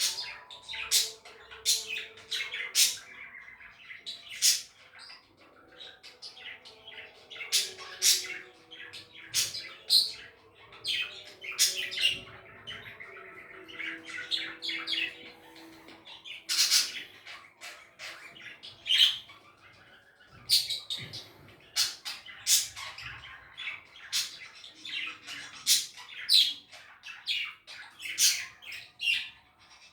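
Budgies chirping and squawking, a rapid run of short sharp calls with busy chatter between them.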